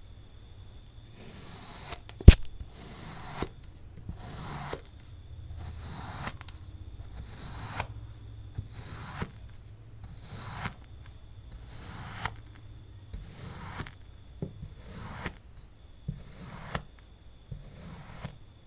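Kitchen knife slicing through blocks of kinetic sand: a gritty crunching stroke about every second and a half, each ending in a sharp tap of the blade, the loudest tap about two seconds in.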